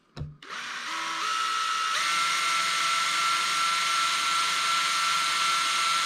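Cordless drill with a fresh 5/64-inch bit drilling out a post in a Hot Wheels car. The motor whine climbs in steps over the first two seconds as the drill speeds up, then holds steady.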